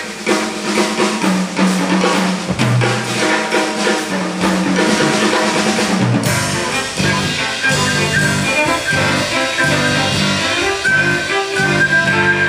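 Live instrumental ensemble of haegeum, piano, cello and drum kit. The drum kit plays busily through the first half and there is a cymbal-like crash about six seconds in, after which held notes take over and a long high note is held near the end.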